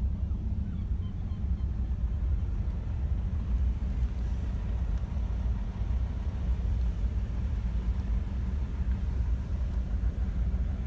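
2004 Mercedes ML 270 CDI's five-cylinder diesel engine idling, a steady low rumble heard from inside the cabin.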